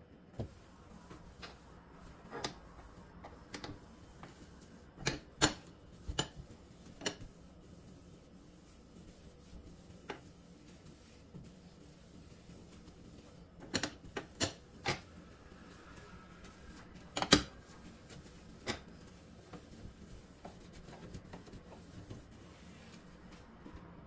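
Cloth wiping and rubbing over a stainless steel gas hob, with a scatter of sharp clicks and knocks on the metal; the loudest knock comes a little past halfway.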